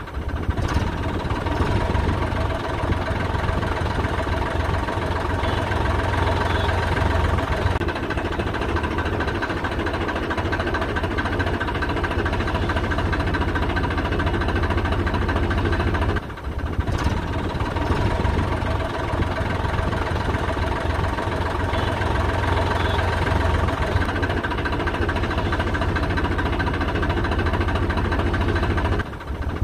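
Tractor engine sound running steadily, laid over the footage as a sound effect. It drops out briefly about halfway through and again near the end, where the footage cuts.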